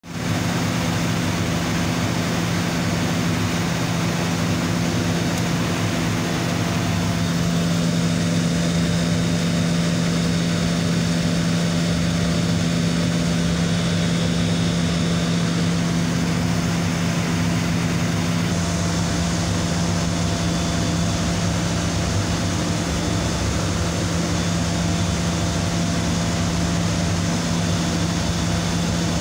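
Industrial air compressor running with a steady loud hum and hiss, its tone shifting slightly about two-thirds of the way through. Oil is blowing back out through its air intake valve, a fault.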